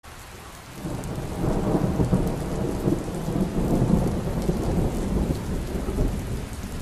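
Rain falling with a low rolling rumble of thunder that swells about a second in.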